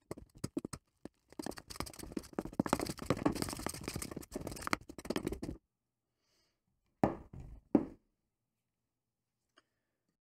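A spoon stirring rye flour and water into a thick sourdough in a stainless steel bowl: rapid scraping and knocking against the metal, which stops abruptly about halfway through. Two short scrapes follow a little later.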